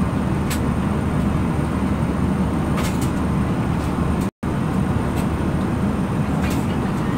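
Steady low roar of engines and airflow inside an airliner's passenger cabin, cut briefly to silence about four seconds in.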